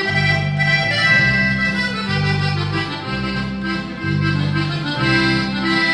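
Regional Mexican band playing an instrumental passage between sung verses: electric bass notes changing about once a second under a lead melody.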